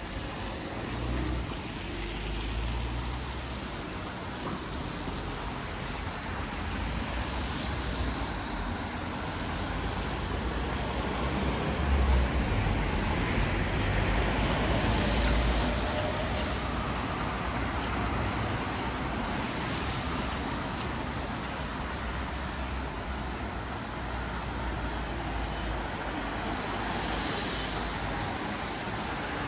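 Street traffic: motor vehicles passing, their engine rumble swelling and loudest around the middle, over a steady hiss.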